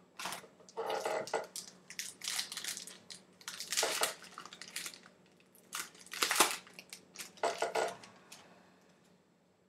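Trading card pack wrapper being torn open and crinkled, with cards rustling as they are handled, in irregular crackling bursts that die away near the end.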